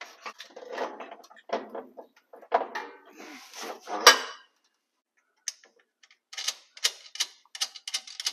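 Metal brake booster and master cylinder assembly scraping and knocking against the truck frame as it is worked into place by hand, with one sharp loud clank about four seconds in. After a short pause comes a run of quick light metallic clicks and rattles.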